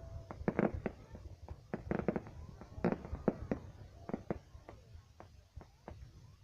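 Fireworks going off in a quick, irregular series of bangs, bunched together at first and thinning out toward the end.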